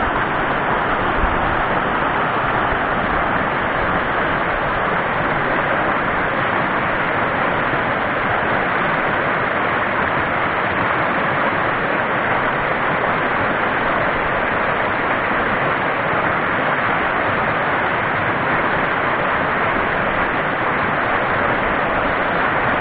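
Mountain stream rushing over rocks in whitewater rapids close by: a steady, even rush of water with no let-up.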